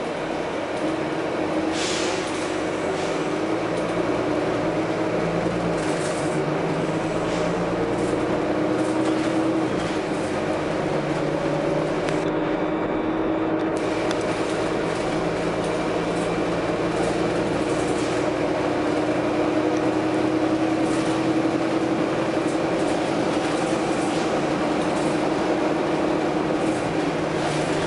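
Volvo B9TL double-deck bus running, its diesel engine and drivetrain droning with a pitch that slowly rises and falls as it speeds up and slows. Short hisses from the bus's compressed-air system come several times, the sharpest about two seconds in.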